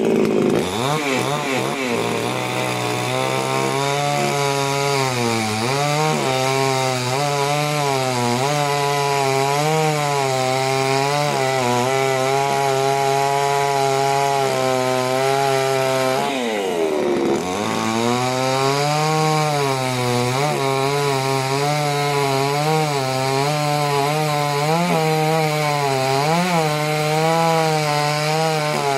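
Two-stroke petrol chainsaw at full throttle, cutting into a thick square timber block. The engine's pitch wavers steadily as the chain bites, and it drops and climbs back once about halfway through.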